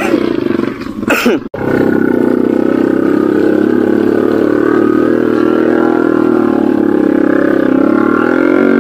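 A Honda underbone motorcycle's single-cylinder four-stroke engine running steadily close to the handlebar camera, its pitch wavering slightly. The sound cuts out briefly about a second and a half in, then the engine note carries on.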